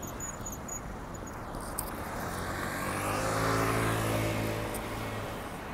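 A motor vehicle drives past, its engine hum swelling to a peak about halfway through and fading away again, over steady street noise.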